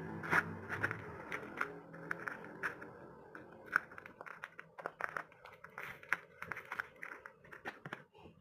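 Packaging being handled: irregular clicks, taps and short rustles of paper and plastic, thinning out near the end.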